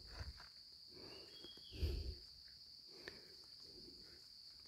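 Steady high-pitched drone of insects in a rubber plantation, with a couple of soft, dull thumps of footsteps on the dirt track, one at the start and one about two seconds in.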